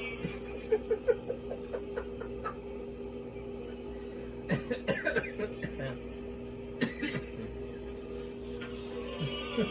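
A person's stifled snickers and chuckles in a few short bursts, over a steady low hum.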